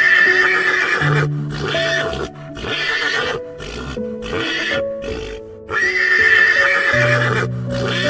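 A horse whinnying twice, once at the start and again about six seconds in, over background music of sustained notes.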